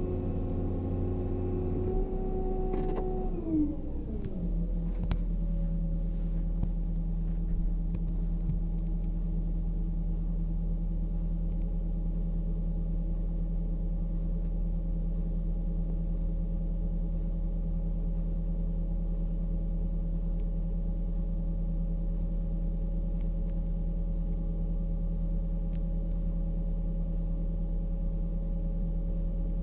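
Excavator diesel engine heard from the operator's seat. It drops from working revs to a steady idle about three to four seconds in, then holds a steady low hum with a few steady higher tones.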